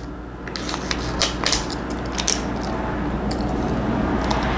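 Crunchy bites and chewing of food close to the microphone, with a run of sharp crackly clicks in the first couple of seconds, over a steady low hum.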